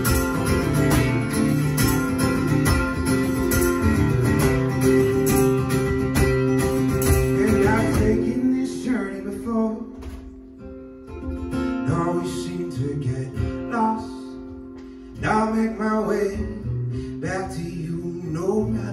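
Live acoustic guitar playing with a kick drum worked by a foot pedal: dense, driving strumming for the first half, then thinning about halfway through to sparser strummed chords a second or so apart, more softly.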